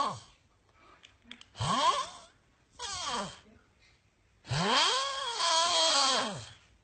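A sleeping person snoring in strange, pitched moans, like a wail, each sliding up and down in pitch. There are a few short ones and then a longer one of about two seconds near the end, with quiet gaps between them.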